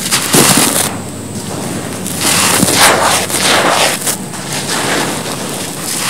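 Hands crumbling and scooping dry, gritty cement powder and small stones, grains crunching and spilling in bursts, one about half a second in and a longer run from about two seconds on.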